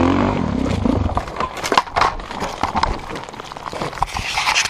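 A Suzuki DR-Z400SM's engine sound fades out within the first second, leaving irregular clicks, scrapes and rustles of hands and gear handling close to the helmet camera.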